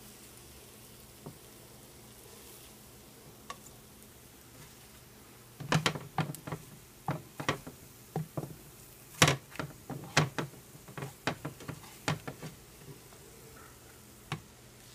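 Black plastic slotted spatula knocking and scraping against a nonstick frying pan, chopping up scrambled eggs. The eggs sizzle faintly for the first five seconds or so, then comes a rapid, irregular run of sharp taps and scrapes.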